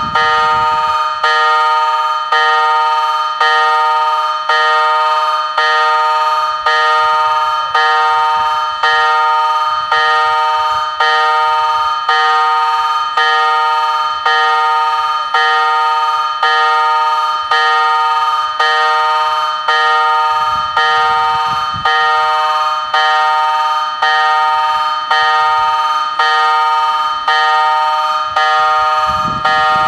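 Level-crossing warning bell ringing steadily, struck about three times every two seconds, each stroke ringing on and fading before the next: the crossing is closed for an approaching train.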